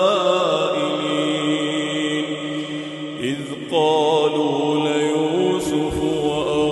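A solo male voice chanting the Qur'an in melodic tajweed style, drawing out long held, ornamented notes. About three seconds in, a brief breath-pause separates the end of one verse from the next verse, which begins louder.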